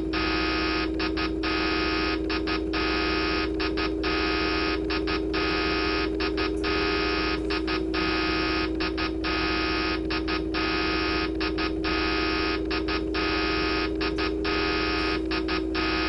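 Electronic computer-malfunction sound effect: a steady low hum under a harsh high buzz that stutters off in quick double or triple breaks about every second and a quarter, like a machine pulsing.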